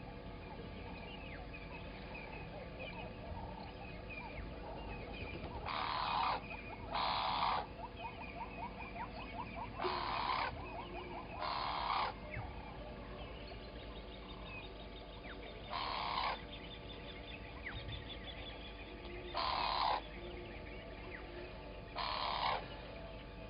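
A bird at a waterhole giving seven loud, harsh calls, some in pairs, over faint morning birdsong of chirps and trills.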